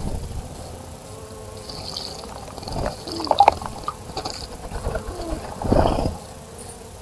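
Small birds splashing in a bird bath, with a burst of splashing about halfway through and a bigger one near the end. Short high chirps from birds come in between.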